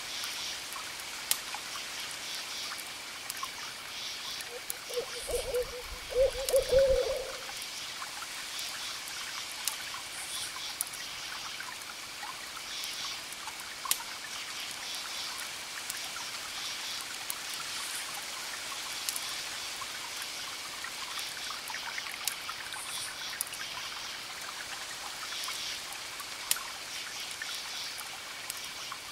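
An owl hooting in a short run of low notes about five to seven seconds in. Behind it runs a steady trickle of water with scattered sharp crackles of a wood fire and repeated high chirping pulses.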